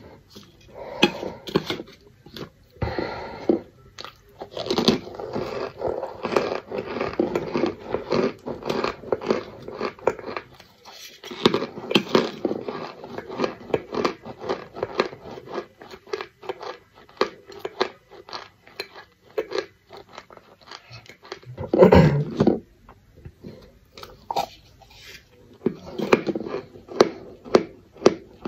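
Close chewing and crunching of cornstarch chunks in the mouth, a steady run of many small crackly crunches. There is one louder, deeper burst about two-thirds of the way through.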